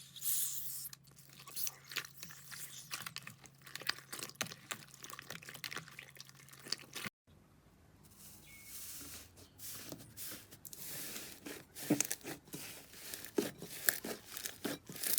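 Slime being squeezed, poked and stretched close to the microphone: a dense run of small crackles, pops and crunchy clicks. It cuts out abruptly about seven seconds in, then starts again.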